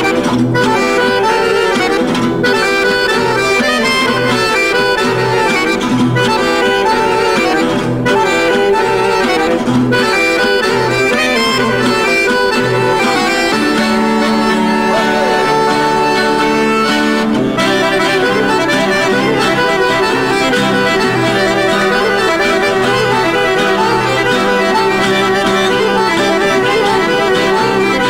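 Chromatic button accordion playing a lively tune over acoustic guitar accompaniment, with a steady bass beat about twice a second. The accordion holds long sustained chords for a few seconds past the middle before the rhythm resumes.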